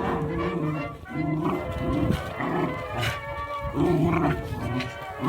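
Small dogs growling while they play-fight, over background music.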